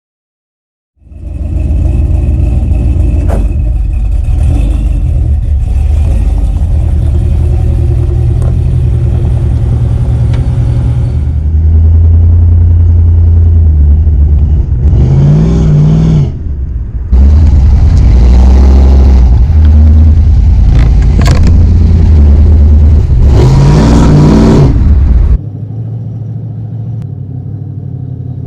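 LS V8 engine running loud with a deep low rumble, revved up and back down twice, once around the middle and once near the end, in several clips that cut in and out abruptly.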